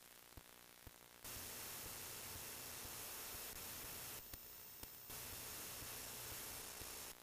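Faint steady hiss of recording noise that switches on and off abruptly a few times, with scattered faint low clicks.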